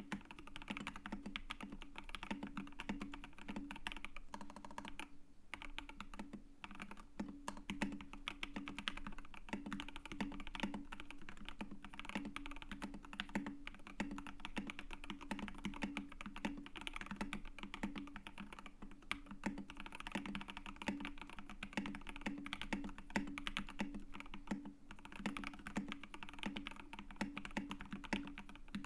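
Fast, continuous typing on a Keydous NJ-80 mechanical keyboard with lubed and filmed C3 Tangerine linear switches and XDA-profile keycaps: rapid keystrokes with a deep, muted clack, pausing briefly about five seconds in.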